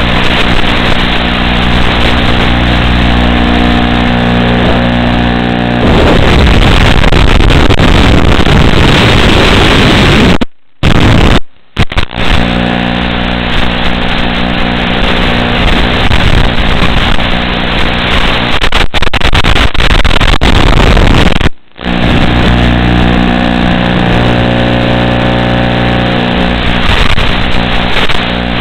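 FPV quadcopter's motors heard through its analog video link: a steady buzzing hum. About six seconds in it turns to a rough static hiss for several seconds, and the sound cuts out briefly three times.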